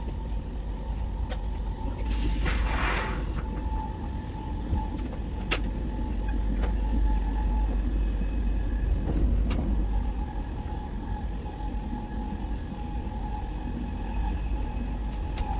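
SRT high-speed train running at speed, heard from inside the passenger car: a steady low rumble with a faint steady whine. A brief rush of noise comes about two seconds in.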